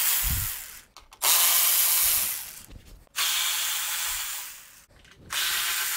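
Cordless electric ratchet with a T25 Torx bit running in short spurts as it backs out the screws of a string trimmer's engine cover. One run ends about a second in, and three more of about a second and a half each follow, with short pauses between.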